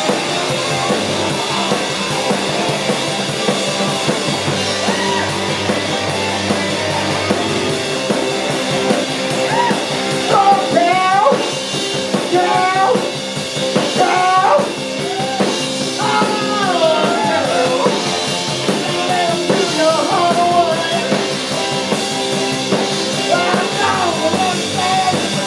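A live band plays rock and roll on drum kit and guitar with a steady beat. A singing voice comes in about ten seconds in.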